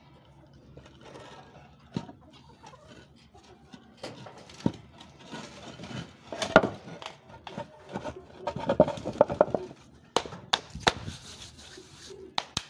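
Stones knocking together and a stone slab scraping over stone as it is slid into place to cover a well opening, with a scraping stretch past the middle and a run of sharp clicks near the end.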